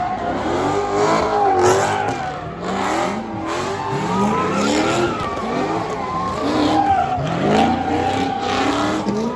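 Cars doing donuts on asphalt: engines revving up and falling back over and over while the tires squeal without a break.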